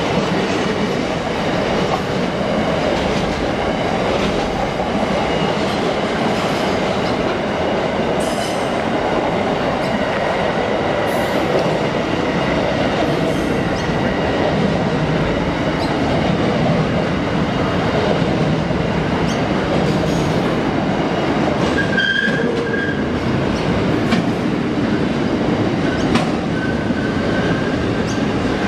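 Freight train wagons rolling past: a steady, continuous rumble and rattle of steel wheels on rail with occasional clicks. Brief high wheel squeals come about 22 seconds in and again near the end.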